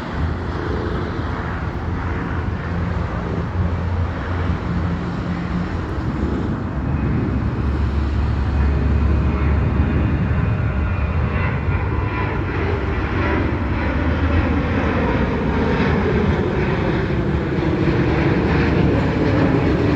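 Boeing 737-800 jet, its CFM56 turbofans at takeoff thrust: a loud, steady jet rumble that grows louder over the first ten seconds and holds.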